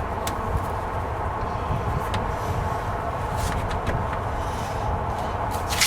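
Scattered light clicks and knocks of plastic shed parts being handled during hinge assembly, with a sharper click near the end, over a steady low background rumble.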